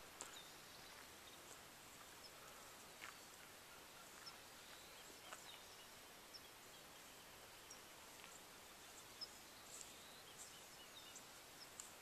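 Near silence: quiet open-air hiss with a few faint, short, high-pitched chirps scattered through it.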